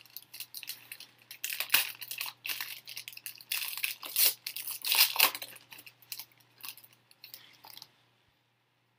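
Foil wrapper of a trading-card pack being torn open and crinkled in the hands, an irregular run of crackles and rips that stops about eight seconds in.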